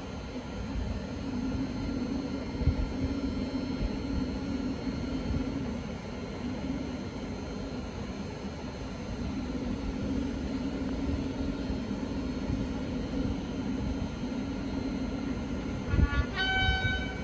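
Class 37 diesel locomotive engine running with a steady low drone as it hauls a train slowly over the points. About a second before the end the locomotive sounds its horn.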